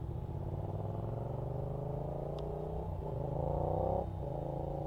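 Electric RC helicopter in flight, T-Rex 450 mechanics with a Scorpion brushless motor: a steady humming whine from the motor and rotors, its pitch gliding slowly upward, with a brief dip about four seconds in.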